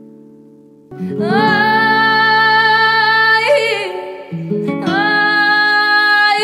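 Recorded dance music: a fading guitar chord, then about a second in a woman's voice sings two long held notes over guitar, with a quick ornamented run between them.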